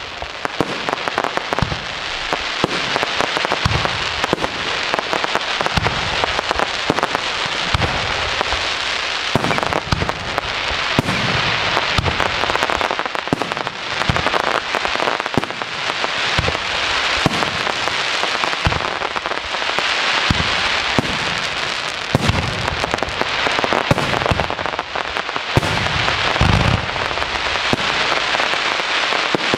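Professional aerial firework shells bursting one after another. Deep booms come every second or two over a continuous, dense crackle of many small reports.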